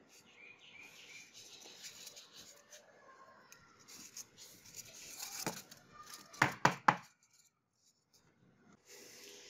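Paper rustling and scratching against a polystyrene foam block as a paper template is pressed and smoothed onto it, then three sharp knocks in quick succession about six and a half seconds in.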